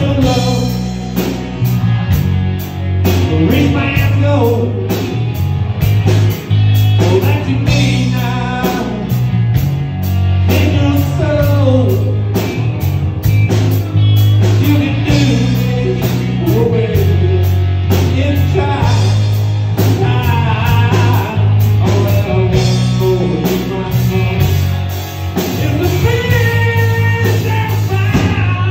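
Live rock band playing loud: electric guitars, bass guitar and drum kit with steady cymbal beats, and a singer's voice over them.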